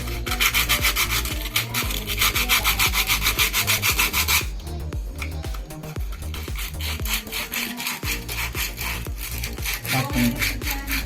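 Emery paper rubbed quickly back and forth inside a car battery's terminal clamp to scour off corrosion, making a fast, even rasping. The strokes are hardest for the first four seconds or so, then go on lighter.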